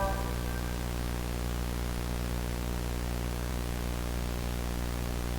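Steady static hiss over a low electrical hum with its overtones, holding unchanged after music cuts off right at the start.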